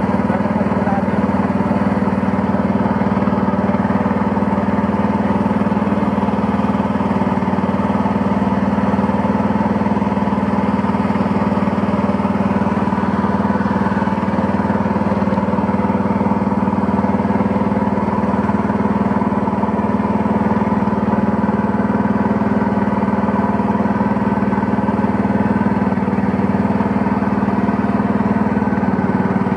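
Engine of a small wooden boat running steadily at an even speed while under way, a constant motor hum with no change in pitch.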